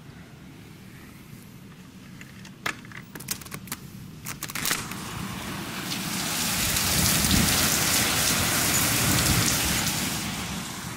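Heavy rain falling in a storm, just after a hail shower. It starts as a steady hiss, with a few sharp ticks a few seconds in. Then a louder rush of rain swells up for several seconds and dies down again.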